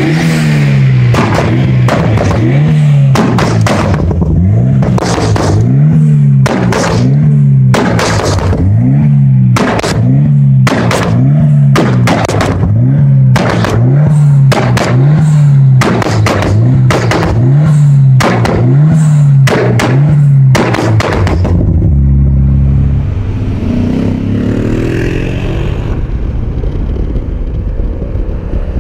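Ford Sierra Cosworth's turbocharged four-cylinder revved over and over with its antilag system working: each blip rises and falls about once every 1.3 seconds, with sharp bangs and pops from the exhaust. After about 22 seconds it gives way to a Mercedes-Benz E63 AMG S with a tuned exhaust, heard from inside the cabin as its engine rises in pitch under acceleration.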